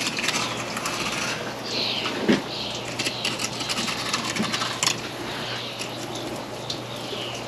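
Fillet knife cutting a large Pacific halibut along its rib bones: a run of small clicks and scrapes as the blade works over and around the bones, with one louder knock about two seconds in.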